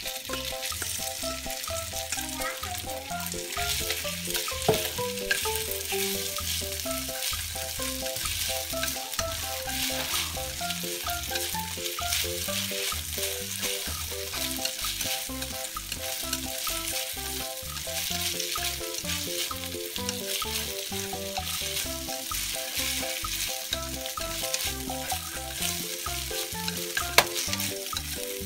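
Marinated beef strips sizzling steadily in a little oil in a nonstick frying pan over medium heat, stirred with chopsticks: the quick first fry before the beef is taken out. A sharp tap comes near the end. Soft background music of short stepped notes plays underneath.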